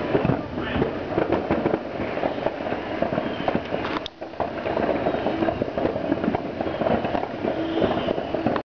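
Many fireworks going off at once: continuous overlapping bangs and crackling, with a brief lull about four seconds in.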